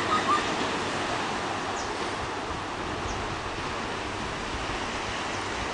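Steady rushing outdoor noise of wind and distant sea, with a couple of short high chirps right at the start.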